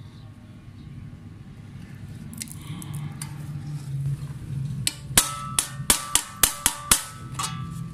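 Hammer striking the aluminium rivet pins that hold a pedestal fan's metal blades to the hub: about eight sharp metallic blows in quick succession in the second half, each ringing briefly.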